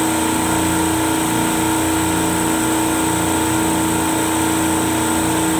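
Commercial refrigeration compressor rack running: a loud, steady machinery hum with a constant drone and hiss that does not change.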